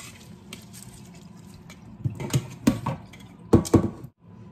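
Soaked glutinous rice being tipped from a stainless steel bowl into a metal mesh strainer over a sink: wet rice slipping and dripping, with a handful of sharp metal knocks of bowl against strainer, the loudest two near the end.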